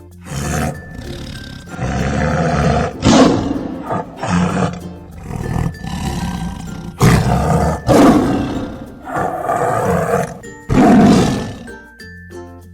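A big cat roaring again and again, about nine loud roars in a row, over background music.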